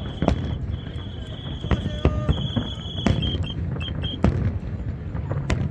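Fireworks going off: several sharp bangs spaced irregularly over a low crowd murmur, with a steady high whistle-like tone for the first three seconds that breaks into short chirps.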